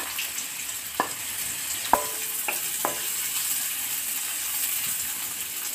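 Sliced onion, chopped garlic and ginger sizzling in hot oil in a kadhai as they are stirred, with about four short knocks in the first three seconds, typical of a spatula striking the pan.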